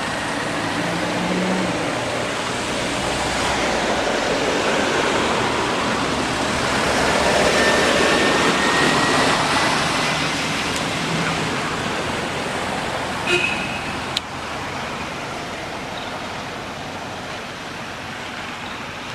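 Steady noise of passing road traffic that swells to its loudest about eight seconds in and then fades. Two sharp clicks come shortly after the middle.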